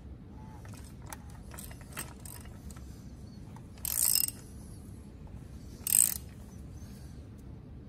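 Hand ratchet clicking on its socket as the composite oil filter canister of a 2.7 EcoBoost V6 is run down before torquing. There are scattered light clicks and two short, louder runs of ratchet clicks, about four and six seconds in.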